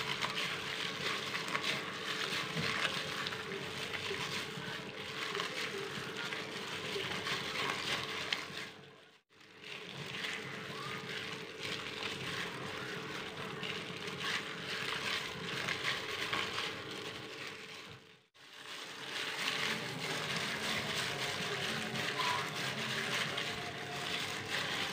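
Wet squelching and plastic-glove rustling as a gloved hand kneads ground fish paste for pempek in a stainless steel bowl, over a faint steady hum. The sound drops out briefly twice, about a third and two-thirds of the way through.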